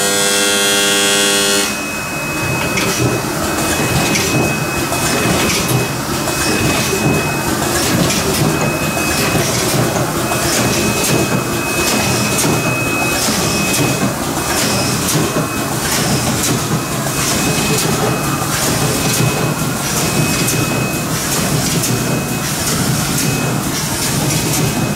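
Fully automatic rotary-index screen printing machine running in production, its turntable indexing and print head cycling in a steady repeating clatter about once a second over a constant machine hum. A short pitched hum opens the sound, and a thin high whine comes and goes.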